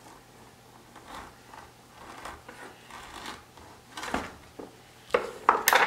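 Serrated knife sawing back and forth through a firm, dry-cured capocollo: a series of short cutting strokes, the last ones near the end the loudest.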